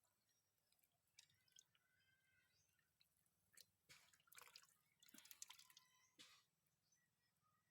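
Faint dripping and splashing of water: irregular small drips and spatters, busiest between about one and six and a half seconds in.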